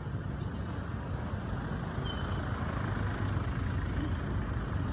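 Steady low rumble of a motor vehicle engine running on the road, with a few faint, short, high chirps over it.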